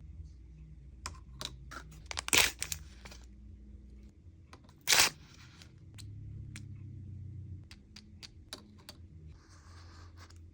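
Small plastic toy capsule and packaging being handled: scattered sharp clicks and taps, with two louder clicks about two and five seconds in and a short rustle of wrapping near the end.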